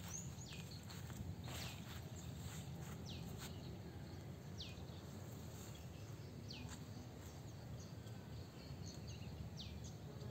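A bird repeating a short, sharply falling high call about every two seconds, over a steady low outdoor rumble, with a few light footsteps early on.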